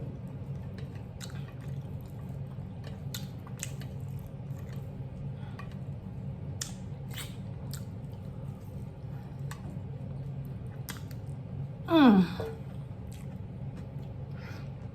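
Close-up eating sounds: chewing with small wet mouth clicks over a steady low hum. About twelve seconds in, a short vocal hum that falls in pitch.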